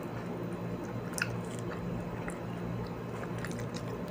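A person chewing food close to the microphone, with small wet mouth clicks and one sharper click about a second in, over a steady low hum.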